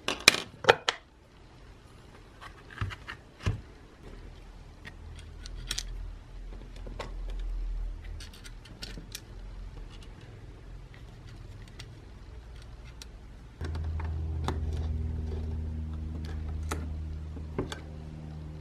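Clicks, taps and light knocks as the small metal and plastic parts of a vintage mixer's motor housing are handled and fitted together, loudest in a cluster near the start. A steady low hum starts suddenly about three-quarters of the way through and runs on.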